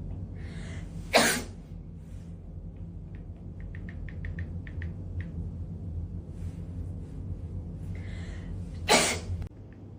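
Two AI-generated sneezes, each a breathy inhale then a sharp loud burst, about a second in and again near the end. A low steady hum runs underneath and cuts off just after the second sneeze. A run of faint ticks comes in the middle.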